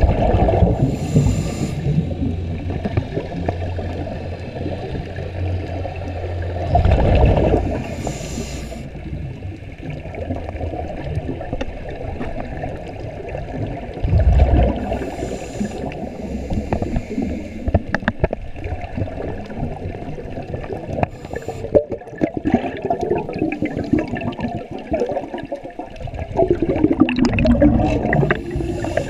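Scuba regulator breathing heard underwater through a GoPro's waterproof housing: a muffled rush of exhaled bubbles about every seven seconds, with hissing and scattered clicks between breaths.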